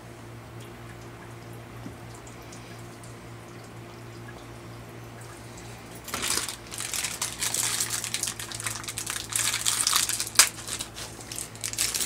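Steady low hum for the first six seconds. Then small brass pipe fittings clatter and clink as they are sorted through by hand on a wooden workbench, with one sharp click near the end.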